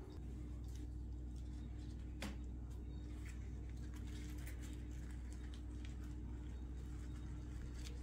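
Soft rustling and light taps of hands handling and rolling a thin pastry sheet on a baking mat, with one sharper tap about two seconds in, over a steady low hum.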